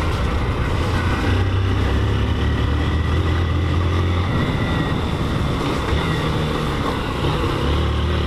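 Motorcycle engine running steadily while riding, its low hum stronger for a few seconds about a second in and again near the end.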